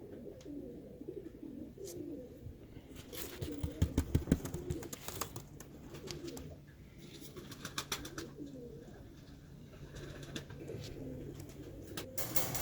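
Birmingham Roller pigeons cooing in the loft, low wavering coos repeating throughout. A run of sharp clicks and knocks about three to five seconds in is the loudest part.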